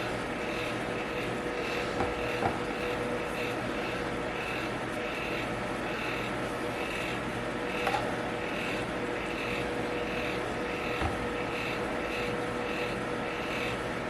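Electric fan running steadily: an even whir with a fixed hum and a faint regular pulsing. A few light clicks sound over it.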